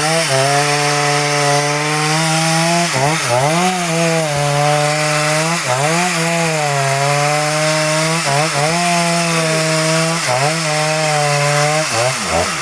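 Chainsaw running at high speed as it cuts through nutmeg-tree wood. Its pitch holds steady for long stretches and dips briefly and recovers several times.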